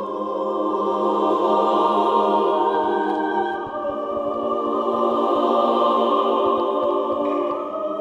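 Background music: sustained choral or organ-like chords, held and changing every few seconds.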